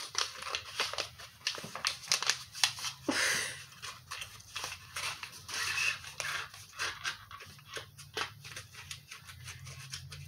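A brush's white sleeve wrapper being handled and crinkled, giving many small crackles and clicks, with a brief rustling rush about three seconds in.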